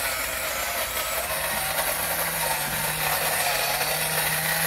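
Cooks electric burr grinder running, grinding freshly roasted coffee beans at a medium-fine setting: a steady grinding noise, with a low steady hum joining about a second in.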